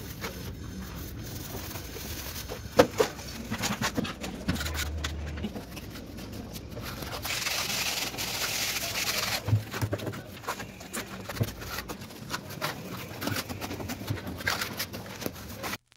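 Hand plastering with wet cement mortar: trowel knocks and scrapes, with a steady rubbing hiss for a couple of seconds just after the middle as a wooden float is worked across the fresh plaster. A sharp knock about three seconds in is the loudest sound.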